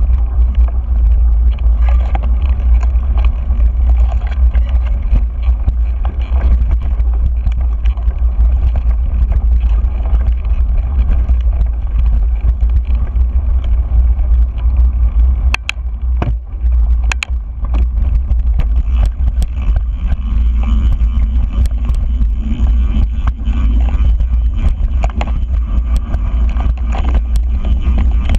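Mountain bike riding down a dirt singletrack: wind buffets the handlebar camera's microphone in a heavy, steady rumble over the noise of the knobby tyres rolling on dirt. Sharp clicks and rattles from the bike come through now and then, with a couple of loud knocks about halfway through.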